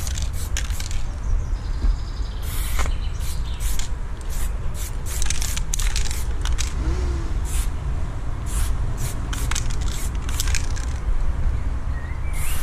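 Aerosol spray-paint can spraying paint onto a wall in many short hisses, some held for about a second, over a steady low rumble.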